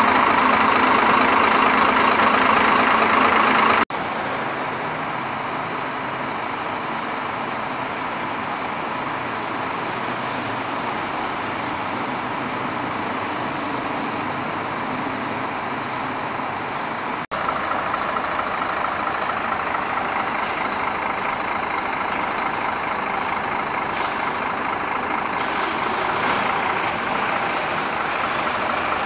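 Scania K420IB coach's diesel engine running at idle, loud and close for the first four seconds, then heard from further off; it swells a little near the end as the coach starts to move off.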